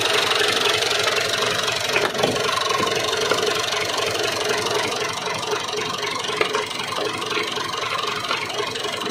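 Massey Ferguson 240 tractor's three-cylinder diesel engine idling steadily, with a couple of faint knocks about two seconds in.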